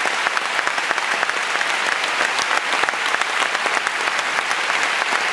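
Audience applauding, a dense steady clapping that cuts off abruptly at the end.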